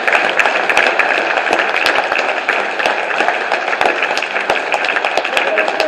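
Audience applauding: dense, continuous hand-clapping that tapers off slightly near the end.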